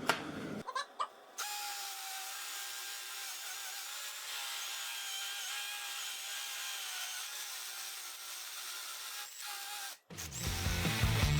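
Ryobi HP 18V brushless hammer drill running steadily with a whine as its 3/4-inch masonry bit drills into brick. The drill sound cuts off near the end and rock music starts.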